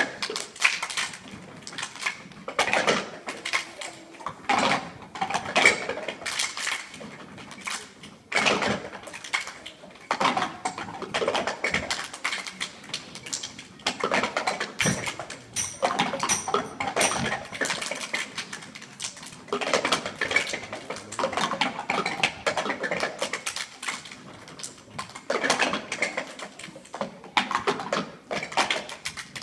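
A group of children knocking and tapping cups against the stage floor in a cup routine, a dense, uneven clatter of many small knocks.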